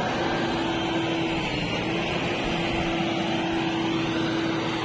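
JCB 3DX backhoe loader's diesel engine running steadily under load, with a steady whine over the engine noise.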